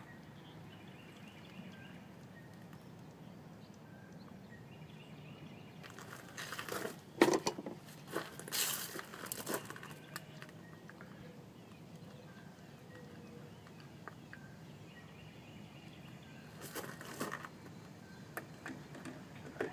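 Hands working a plastic three-prong wiring plug and LED light housing: scattered rustling and sharp plastic clicks in two spells, the loudest click about seven seconds in, over a faint steady background.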